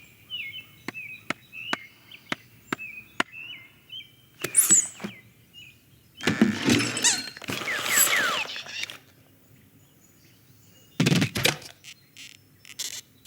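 Film sound-effects track of outdoor ambience: a bird chirping over a run of evenly spaced sharp ticks, followed by a few louder bursts of clattering and rustling with quick squeaks, and a short burst of knocks near the end.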